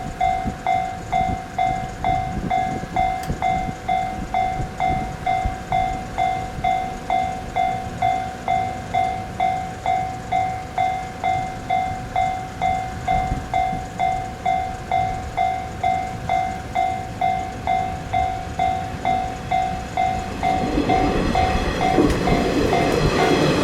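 Japanese level-crossing warning bell ringing steadily, nearly two strikes a second. About three seconds before the end, the rumble of an approaching train rises and grows louder.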